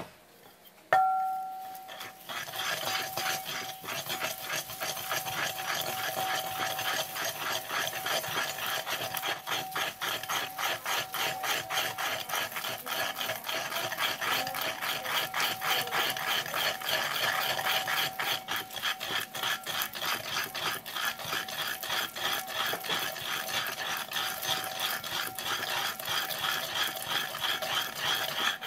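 Wooden surikogi pestle grinding kinome leaves into miso in a ceramic suribachi, a rapid, steady scraping rub against the bowl's ridged inside. About a second in, a sharp knock sets the bowl ringing briefly, and a faint ring carries on under the strokes.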